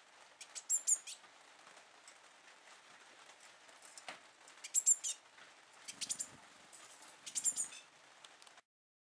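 Young blue tit chirping: short clusters of thin, high-pitched calls about a second in, around five and six seconds, and again near the end.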